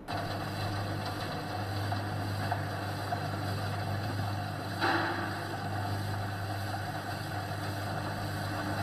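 Food-grade Z-type bucket elevator conveyor running with a steady mechanical hum, with a brief louder knock about five seconds in.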